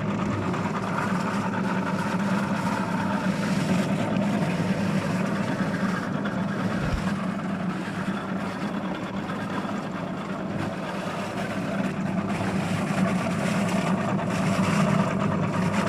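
Motor-driven pepper grinder running steadily while fresh red peppers for isot are fed in and chopped, a constant machine hum throughout.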